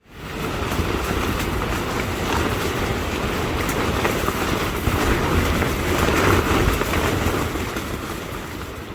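Strong, gusty wind blowing hard, with gusts buffeting the microphone into a deep rumble. It swells about six seconds in and eases off near the end.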